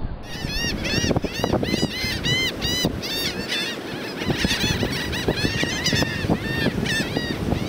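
A flock of laughing gulls calling over one another: many short, arched cries in quick succession.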